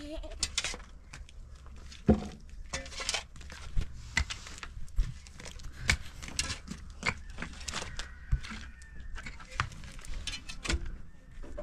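Hand digging tools striking and scraping stony soil: irregular sharp thuds a second or so apart, with scraping and rustling of earth between them.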